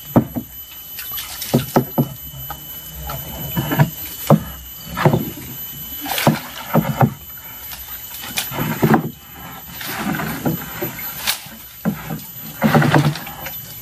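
Irregular knocks and bumps against a wooden canoe, with water sloshing, as a large net fish trap is hauled up from the river beside the boat.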